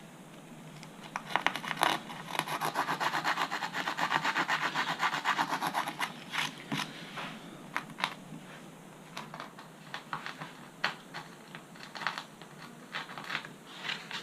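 Rolled-up emery tape rubbed quickly back and forth to open a control-rod slot in a model glider's wing: a run of rapid, even strokes for about five seconds, then scattered short scrapes and taps.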